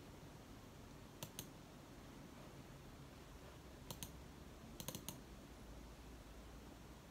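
Computer mouse buttons clicking on a vertical ergonomic mouse: two quick clicks about a second in, another pair near four seconds, and three quick clicks around five seconds, over faint room tone.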